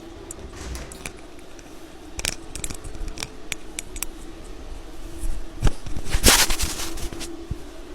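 Stick (MMA) welding arc with a UONI 13/55 electrode, crackling in irregular sharp pops. A louder spell of dense sizzle comes about six seconds in, over a steady low hum.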